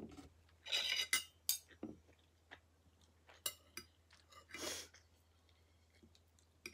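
Metal knife and fork clinking and scraping on a ceramic plate while cutting up fried breakfast food: a string of scattered short clinks with a few brief scrapes.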